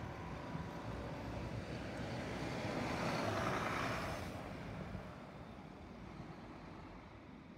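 Transit-style school bus driving past and away. Its engine and road noise build to their loudest about three to four seconds in, then fade.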